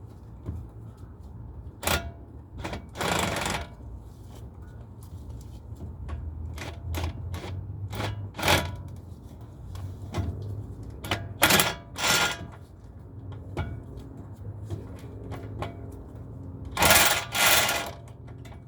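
Metal hand tools working on brake caliper bolts: scattered sharp metal clicks and clanks with a few short rattling bursts, the loudest a double burst near the end.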